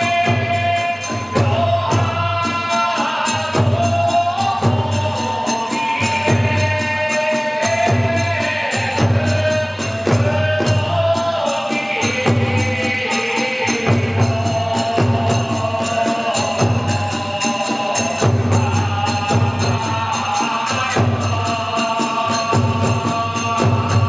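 Kagura ensemble music: a shrill bamboo transverse flute (fue) plays a winding melody over steady beats of a large barrel drum (ōdō) about once a second, with small hand cymbals clashing along.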